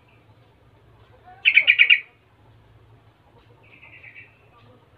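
Yellow-vented bulbul singing: a loud, quick bubbly phrase of about six notes about a second and a half in, then a fainter, similar phrase around four seconds in.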